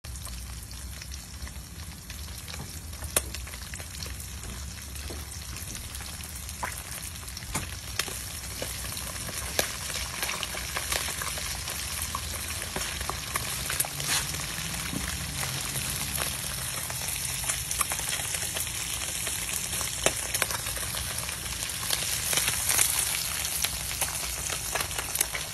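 Whole masala-coated fish frying in hot oil in a steel wok: a steady sizzle with scattered crackling pops, growing gradually louder.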